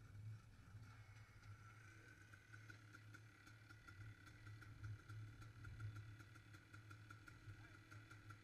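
Dirt bike engine running steadily at low revs as the bike rides in and pulls up.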